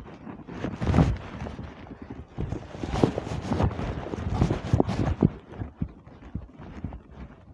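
Handling noise: irregular close knocks, scuffs and clothing rustles as a fishing handline is cast by hand, busiest about a second in and again around the middle, dying down near the end.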